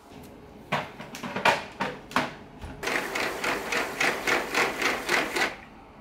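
Roidmi X30 VX cordless vacuum's rotating mop head working over a vinyl floor: a few irregular knocks, then a quick rhythmic scrubbing at about four strokes a second that stops shortly before the end.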